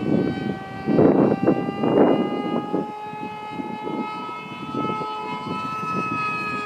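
Turnigy 2836 brushless helicopter motor and propeller on an RC Skyfun plane at speed, a steady high-pitched whine of several tones that sounds like a jet, sinking slightly in pitch near the end. Rough bursts of wind on the microphone about one and two seconds in.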